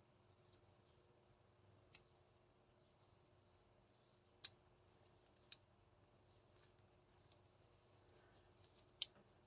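Small parts of an airsoft 2011 pistol being handled and fitted during reassembly, giving sharp, irregularly spaced clicks; four stand out and the loudest comes about four and a half seconds in. A faint steady hum runs underneath.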